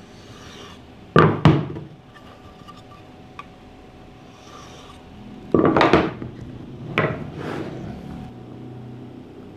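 Pine boards and a wooden marking jig knocking and sliding on a workbench as they are handled and set down. There are two sharp knocks about a second in, then a louder cluster of knocks and sliding a little before six seconds, with two more knocks around seven seconds.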